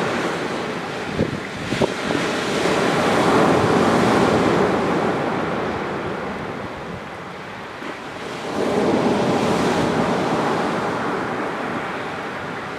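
Surf on a sandy beach: waves break and wash up twice, the sound swelling and fading, from a slightly rough sea. A few sharp pops a second or two in, likely from a driftwood campfire.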